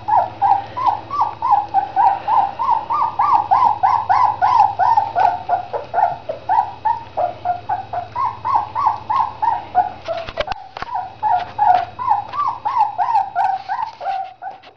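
Springer spaniel puppies whimpering as they crowd a food plate: an unbroken string of short, high whines that rise and fall, several a second. A brief burst of clicks comes about ten seconds in.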